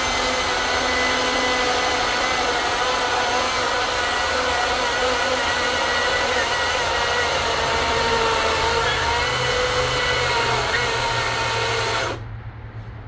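Greenworks battery chainsaw running steadily at full speed through a 20-inch oak log, its electric motor whining, until it cuts out suddenly about twelve seconds in: the saw has shut down from overheating.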